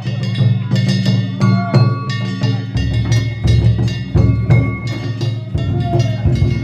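Danjiri festival music: a taiko drum and ringing metal gongs struck in a quick, repeating rhythm.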